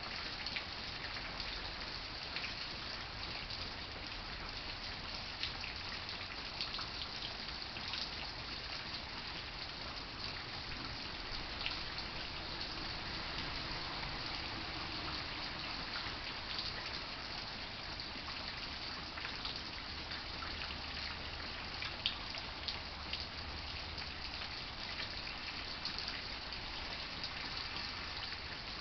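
Rain falling steadily, with many single drops striking sharply throughout.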